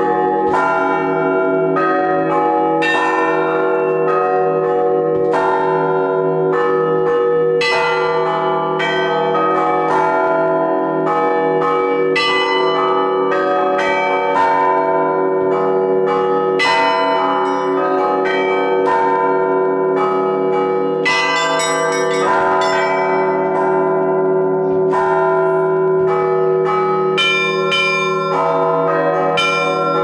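Russian Orthodox bell ringing (zvon): bronze belfry bells struck by clappers pulled on ropes, the small bells chiming in quick, uneven patterns over the continuous hum of the larger bells.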